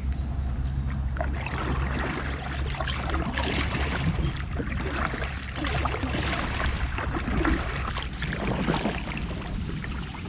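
Water splashing and trickling around a sit-on-top kayak under way, with a steady low hum underneath.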